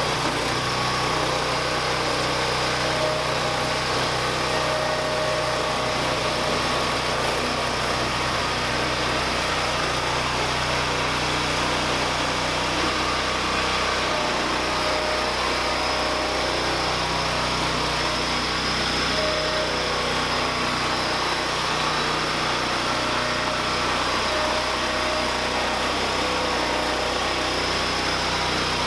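MTD 990 lawn tractor's small engine running at a steady speed, with a faint higher whine coming and going several times.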